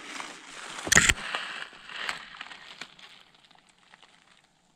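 Spruce branches rustling and crackling as they brush against clothing and the camera, with one loud, sharp crack about a second in. Small twig clicks follow and fade to near quiet.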